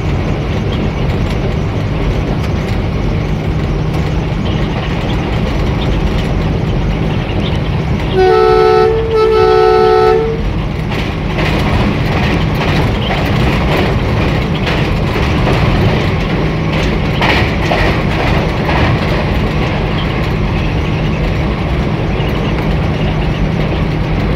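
ZCU-20 diesel-electric locomotive running along the line, heard from the cab: a steady engine hum over the clatter of the wheels. About eight seconds in, its two-note horn sounds twice in quick succession, each blast about a second long.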